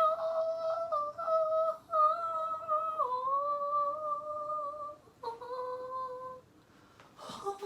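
A voice humming a slow melody in long held notes, meant to sound creepy. It breaks off about six seconds in, and a short breathy sound follows near the end.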